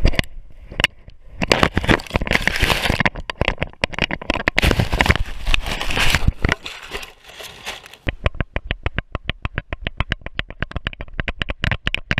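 Dry grass crackling and rustling against a harness-mounted camera as a dog pushes and rolls through it. About eight seconds in this gives way to a quick, regular series of sharp ticks, several a second, as the dog moves along a dirt trail.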